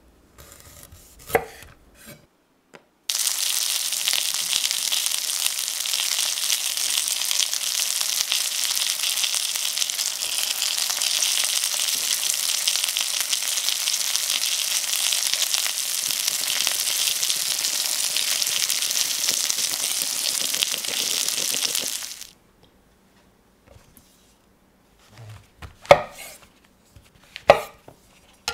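A few knife cuts on a wooden chopping board, then flour-coated chicken thighs frying skin-down in oil in a cast iron skillet with a loud, steady sizzle that starts about three seconds in and cuts off abruptly some nineteen seconds later. Near the end, two knife strikes on a wooden board as chestnut mushrooms are cut.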